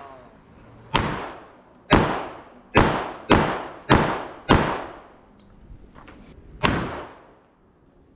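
Armscor 1911 pistol in .45 ACP firing seven single shots, each a sharp crack that trails off in a short echo. The first three come about a second apart, the next three quicker, and the last after a two-second pause.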